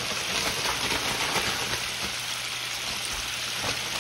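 Cornmeal-breaded catfish fillets deep-frying in hot oil: a steady, dense sizzle with small crackles.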